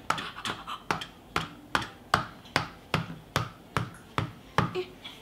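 Toy hammer knocking a toy nail, repeated light taps at a steady pace of about two and a half strikes a second.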